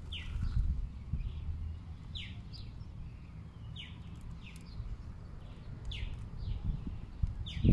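A small bird calling over and over with short falling chirps, often in pairs, every second or two, over a low rumble. A dull thump near the end.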